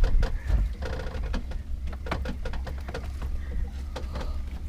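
Low steady rumble of a fishing boat, with scattered sharp knocks and clicks.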